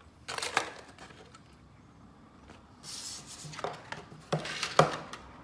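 Handling noise as tools and their packaging are put down and picked up: a few sharp knocks on a hard surface, the loudest near the end, and a brief rustle about halfway through.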